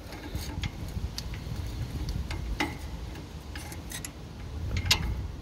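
Scattered light metallic clicks and taps as a bolt is worked by hand through a bracket hole on a stand-on aerator's tine chain assembly, with a brighter cluster of clicks near the end. A low steady rumble underneath.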